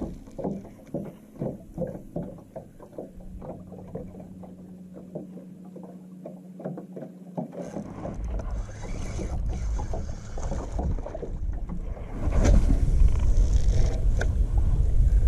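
Small waves lapping against the hull of a fishing boat in rhythmic slaps over a steady low hum. From about 12 seconds in, a loud low rumble of wind buffeting the microphone takes over.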